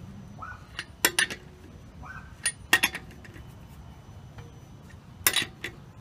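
Socket wrench clinking against steel wheel lug nuts while the nuts are loosened: sharp metallic clinks with a brief ring, in three clusters, about a second in, near three seconds in and about five seconds in.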